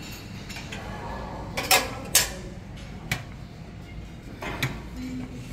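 Crockery and cutlery knocking and clattering in a breakfast buffet dining room: two sharp clatters close together a little under two seconds in, then a couple of lighter knocks, over a steady room hum.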